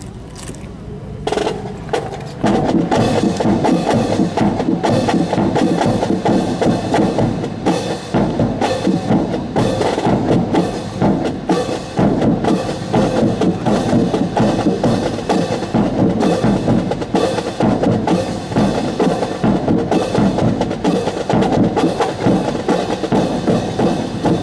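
Marching drums playing a fast, steady cadence to accompany a rifle drill team; the drumming starts quietly and comes in at full strength about two seconds in.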